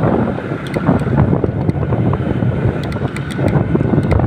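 Wind buffeting the microphone on a moving motorcycle, over the low run of the engine and road noise from the rough dirt road, with scattered small clicks and rattles.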